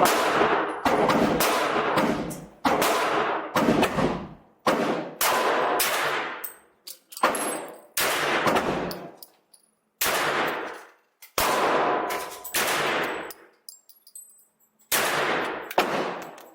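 Pistol shots fired one at a time, about a dozen, roughly a second apart with longer pauses near the end. Each shot has a long echoing tail.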